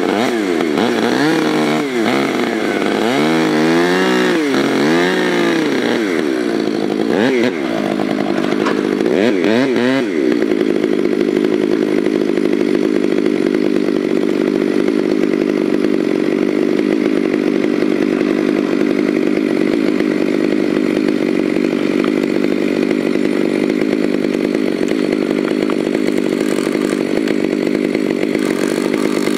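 Chainsaw felling a beech tree. Its engine speed rises and falls repeatedly for about ten seconds, then holds a steady pitch at full throttle while the bar cuts into the base of the trunk.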